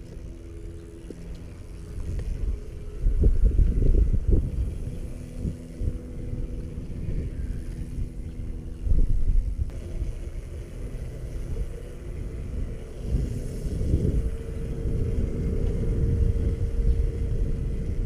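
Pit bike's Lifan 125cc single-cylinder four-stroke engine running while riding, its pitch rising as it picks up speed about two seconds in and holding a steady note over the last few seconds. Heavy low wind rumble on the helmet microphone, loudest about three to four seconds in.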